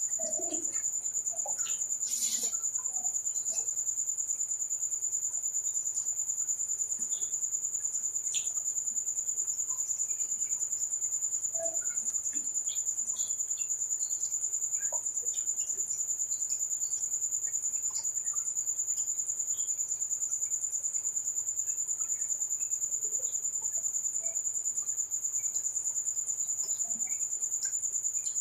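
Crickets trilling steadily at one high pitch, the loudest sound throughout, with faint scattered clicks and mouth sounds of eating.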